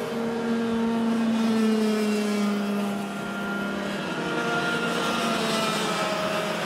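Racing kart engines running hard as two karts go by, their buzzing notes drifting slowly down in pitch.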